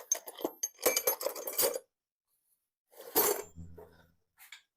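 Small metal tools and parts clinking and tapping against each other as they are handled, a quick run of light metallic clicks with faint ringing, then a short second cluster of knocks about three seconds in.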